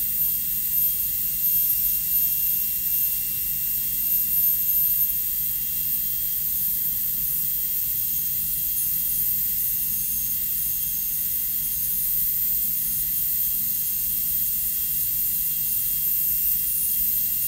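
High-speed dental handpiece (drill) running steadily with a high-pitched whine and hiss, its bur cutting an amalgam cavity preparation in a maxillary first molar.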